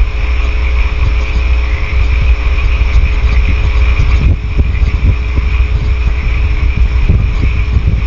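Steady loud low rumble and hiss with a constant electrical hum, with soft irregular low knocks in the second half.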